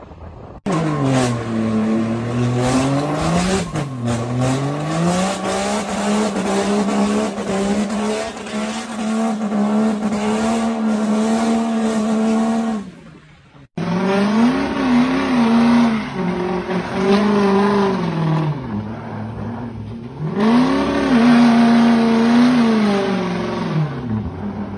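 Diesel pickup truck engines at hard throttle. One engine note climbs and holds steady for several seconds, then cuts off suddenly. Another truck then revs up and down, drops away and climbs again near the end.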